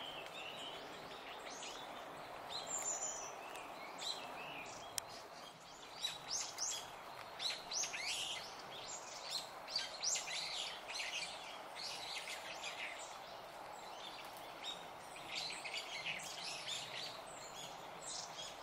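A mixed flock of long-tailed tits and Japanese tits calling: many short, high chirps, thickest about six to eleven seconds in and again near the end, over a steady background hiss.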